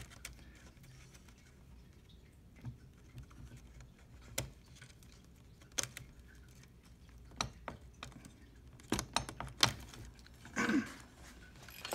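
Scattered small plastic and metal clicks and taps as hands work inside a Triton ATM's receipt printer, unplugging the printer head's cable and handling its parts.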